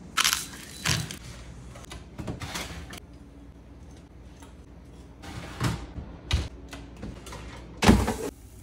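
A string of short kitchen handling knocks and scrapes: seasoning shaken over a metal sheet pan, the pan slid into the oven with a dull thud, and near the end the loudest clatter as a Chefman air fryer's basket is pulled out.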